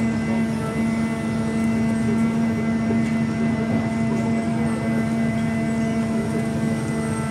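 The mechanical walking elephant's machinery running with a steady low hum and an even mechanical rush, with no breaks or changes.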